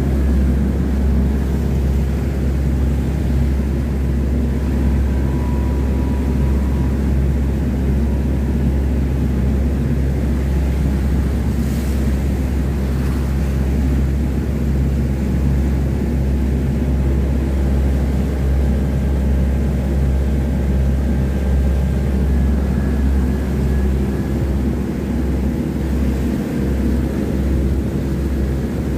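Motorboat engine running steadily at cruising speed: a deep, even drone with the rush of water from the wake.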